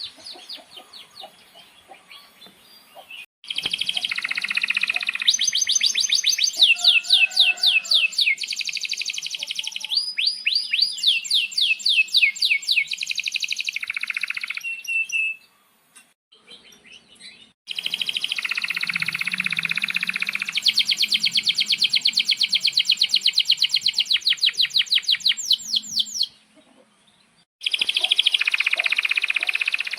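Male domestic canary singing long, fast rolling trills of rapidly repeated chirping notes, in phrases broken by a couple of short pauses.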